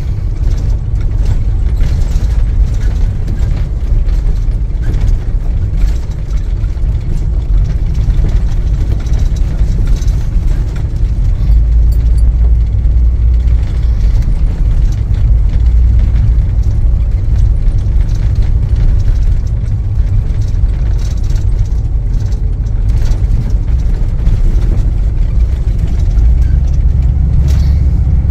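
Vehicle driving on a wet road, heard from inside the cab: a steady, loud low rumble of engine and tyres.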